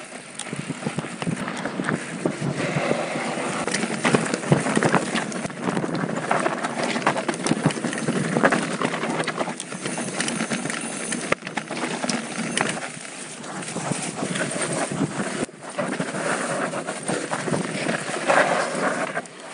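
Mountain bike rattling and clattering as it rolls fast over a rocky dirt trail, its tyres crunching on loose stones and dirt in a dense run of irregular knocks.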